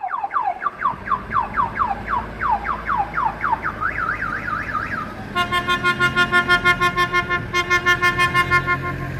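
Electronic car alarm siren cycling through its tones: rapid falling chirps about four a second, then a quick rising-and-falling warble, then a pulsing horn-like tone from about halfway through.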